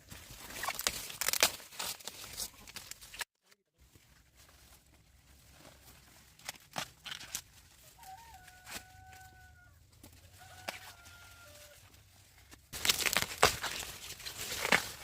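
Chickens calling, with two drawn-out, steady-pitched calls in the middle, between stretches of loud rustling and crackling at the start and near the end.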